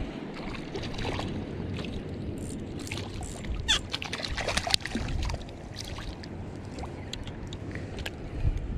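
Shallow lagoon water splashing and sloshing as a hooked whiting is pulled in on the line, with a run of sharper splashes and clicks in the middle.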